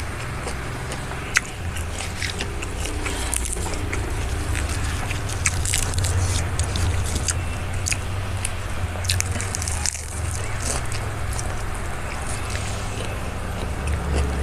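A person chewing and biting food close to the microphone, with frequent short crisp clicks and crackles and one sharp click about a second and a half in, over a steady low hum.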